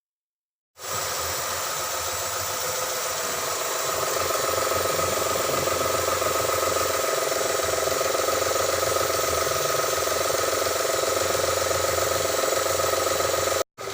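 Honda Cielo car engine running steadily at idle. It starts abruptly about a second in, grows slightly louder a few seconds later, and drops out for a moment near the end.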